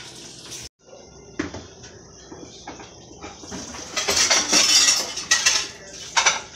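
Dishes and utensils clinking and clattering, with a stretch of loud hissing noise about four seconds in and a few sharp clinks near the end.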